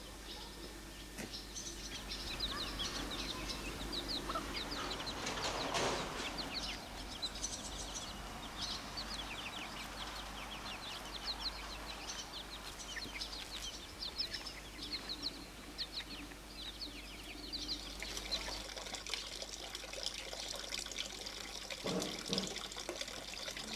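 Chickens and chicks peeping and clucking, with many quick high chirps, followed near the end by water running from a spout into a stone trough.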